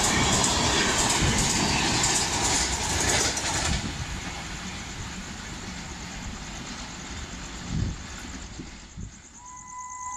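LHB passenger coaches of a Rajdhani Express rushing through a station at high speed, a loud steady roar of wheels on rail and moving air. About four seconds in the noise drops off sharply as the last coach clears, leaving a fading rumble.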